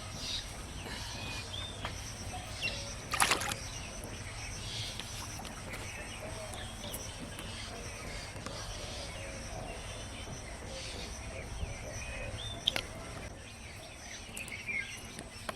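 Rural outdoor ambience with scattered short bird chirps and a steady low rumble, broken by two sharp knocks, one about three seconds in and one near the end.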